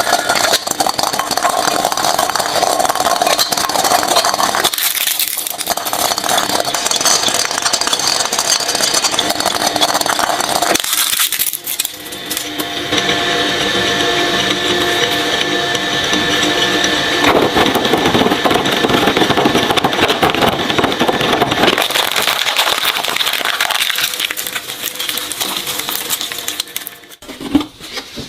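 Shredding machine grinding and crunching objects through its blades, a dense crackling noise that changes character several times and dies down near the end.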